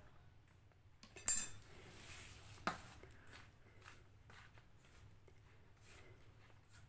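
Kitchenware handled: a ringing clink of a dish or utensil about a second in, a soft rustle, then a single sharp tap, followed by faint small knocks.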